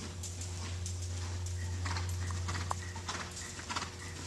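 Hoofbeats of a horse being ridden round on the soft dirt footing of an indoor arena, a quick run of footfalls. A steady low rumble runs underneath them.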